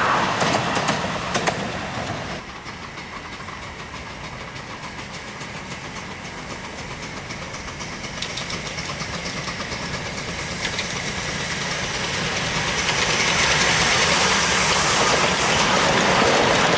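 Miniature steam trains on a 7¼/10¼-inch ground-level line. In the first two seconds a departing train rattles away and fades. Then the LMS Black 5 No. 5156 locomotive and its passenger coaches run up, growing steadily louder until they pass close by near the end.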